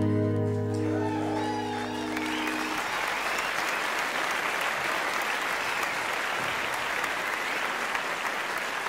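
A steel-string acoustic guitar's last chord ringing out and dying away, overlapped from about two seconds in by an audience applauding, which carries on steadily.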